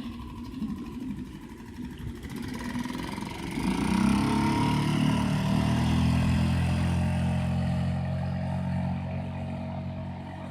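A 3.5 hp Evinrude four-stroke outboard motor opens up about three and a half seconds in, its pitch climbing, then runs steadily at speed. Before that it runs low under a rough noise.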